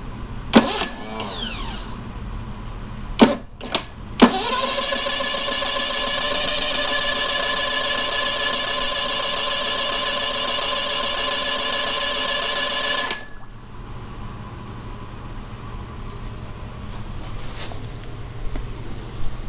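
Electric starter of a Tohatsu 20 hp four-stroke outboard cranking the engine without it catching. A brief crank winds down about half a second in, two clicks follow a few seconds later, then a steady crank of about nine seconds stops abruptly with the engine still not firing.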